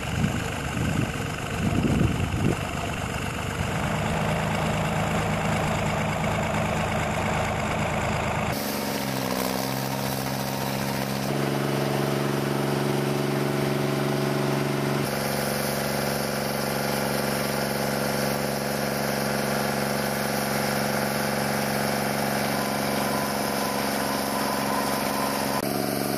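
Stump grinder's engine running steadily, its note stepping to a new pitch a few times, with some uneven surges in the first few seconds.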